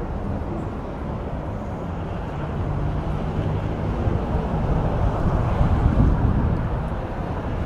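Street traffic rumble mixed with wind buffeting the microphone, swelling louder a few seconds in and then easing back.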